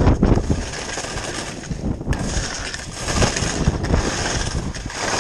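Wind buffeting the microphone of a skier moving downhill, a gusty low rumble, with the hiss of skis sliding through powder snow that grows stronger about two seconds in.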